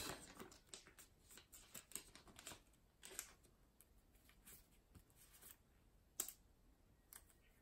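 Faint scattered clicks and rustles of trading cards and a clear plastic card sleeve being handled, with a sharper click about three seconds in and another about six seconds in.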